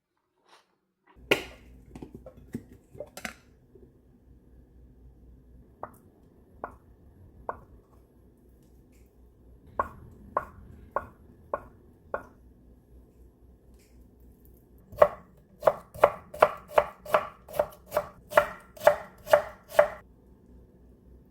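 Knife chopping on a cutting board: scattered single strokes at first, then a quicker, even run of about a dozen chops, some two a second, near the end. A faint steady low hum lies underneath.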